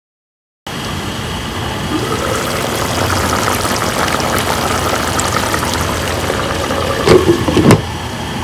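Pork stew simmering in a pot, a steady bubbling, starting about half a second in; near the end a glass pot lid clanks twice as it is lifted.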